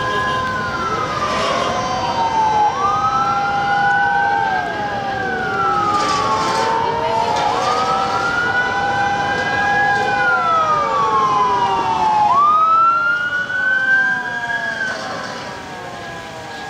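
Several fire-truck sirens wailing at once, overlapping. The loudest rises quickly, then slides slowly down, about every five seconds. They fade somewhat near the end.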